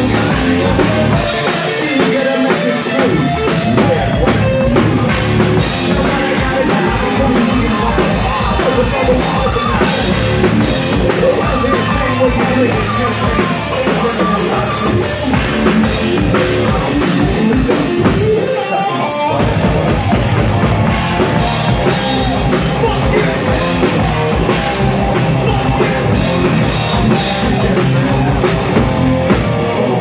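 Live hard rock band playing loud: electric guitar, drum kit and a singer's vocals. The bass and kick drop out briefly twice, about two seconds in and again about two-thirds of the way through.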